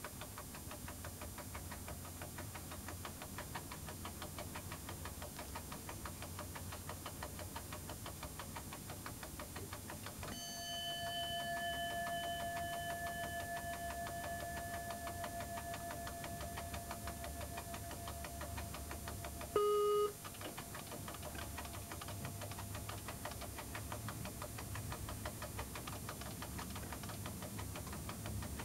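Train running, heard from the driver's cab: a steady low rumble with fine regular clicking. About 10 s in a ringing tone starts suddenly and fades away over several seconds, and about 20 s in the cab's KVB speed-control equipment gives one short beep.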